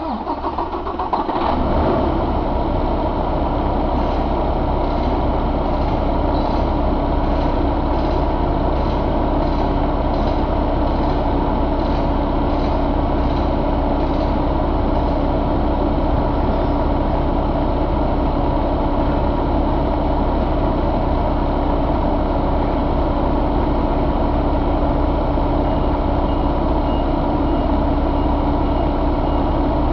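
2014 Paccar MX13 inline-six diesel engine firing up and settling, within about two seconds, into a steady idle.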